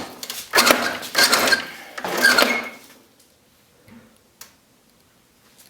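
Rusty, frayed steel winch cable being pulled by hand off a Warn XL3000 winch drum in freespool, rasping and rattling with a metallic ring for about three seconds. Then it goes quiet apart from a couple of faint clicks.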